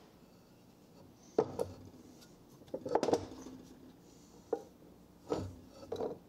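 Workbench handling sounds: a handful of short, sharp knocks and clatters of hard objects being moved and set down, loudest as a small cluster about three seconds in.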